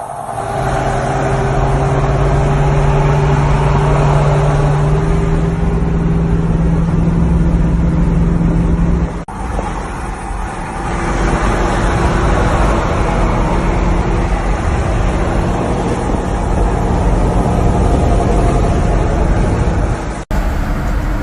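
Car engine running under way with road noise, a loud steady drone whose pitch steps up about five seconds in as the revs rise. The sound drops out sharply twice, about nine seconds in and near the end.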